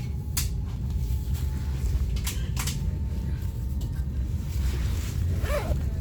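Steady low rumble of a train running, heard from inside the passenger car, with a few light clicks and knocks.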